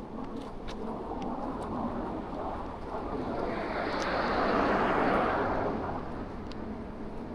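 A vehicle passing close by on the street: a rush of noise that builds about three seconds in, peaks near the middle and fades away.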